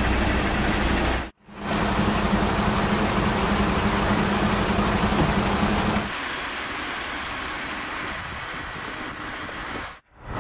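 Emergency vehicle engines idling, with a steady low hum. The sound breaks off briefly twice and drops to a quieter steady noise about six seconds in.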